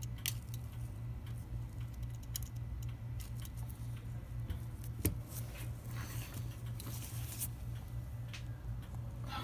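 Irregular light metallic clicks from a brass clock movement being handled and worked by hand, with one sharper click about five seconds in. A steady low hum runs underneath.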